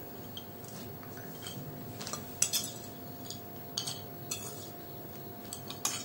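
Plates and cutlery clinking as fried snacks are served out onto small plates: a scatter of short, sharp clinks, the loudest about two and a half seconds in.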